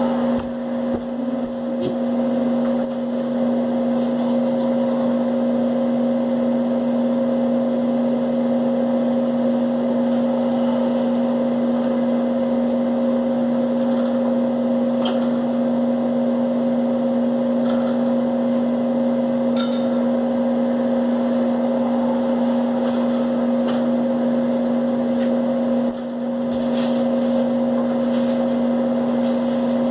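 A steady mechanical hum at one constant pitch, with a few faint clicks and knocks scattered through it.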